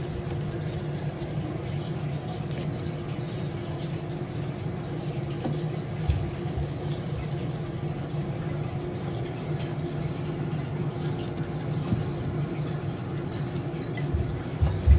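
A steady low hum, with a few dull knocks as hands arrange food in a cast-iron pot; the loudest knock comes near the end.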